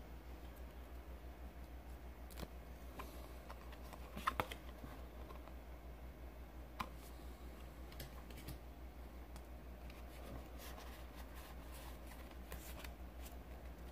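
Pokémon trading cards being handled and flicked through by hand: scattered light clicks and taps of card stock, loudest as a short cluster about four seconds in, over a low steady hum.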